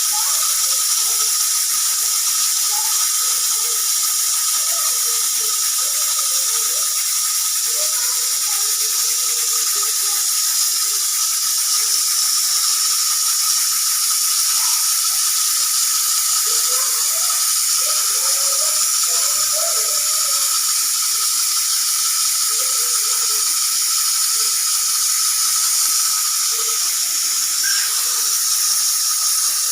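Pressure cooker hissing steadily as steam escapes, with a faint steady tone in it and no whistle blast: the whistle is not going off.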